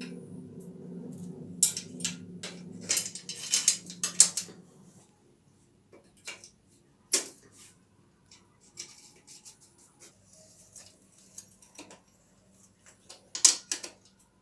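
Metal clinks and rattles of bicycle reassembly: a bicycle chain jingling as it is handled, then scattered clicks of a spanner on the rear wheel's axle nuts, with loud clanks about four seconds in and near the end. A low steady hum runs under the first five seconds.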